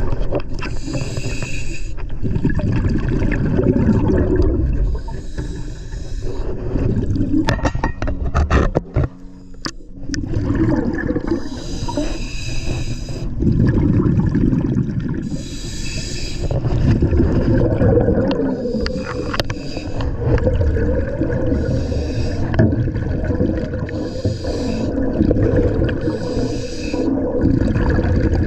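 Scuba diver breathing underwater through a regulator: a hiss on each breath in, every few seconds, with loud bubbling of exhaled air between. A quick run of clicks comes about eight seconds in.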